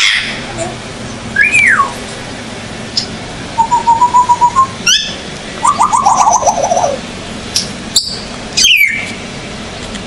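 African grey parrot whistling and calling in a string of separate sounds: a whistle that rises then falls, a wavering trill held about a second, a sharp click, a quick run of notes stepping down in pitch, and a high falling whistle near the end.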